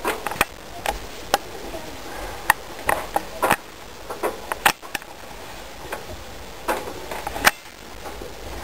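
A dozen or so sharp clicks and knocks at uneven intervals.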